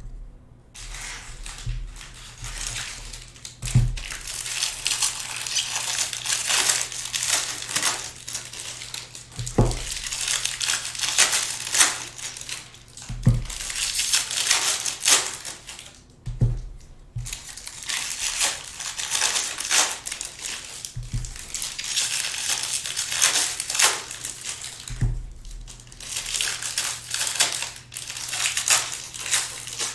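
Plastic wrapping crinkling and crumpling in long stretches, as a sealed box of trading cards is unwrapped and handled, with a few soft thumps.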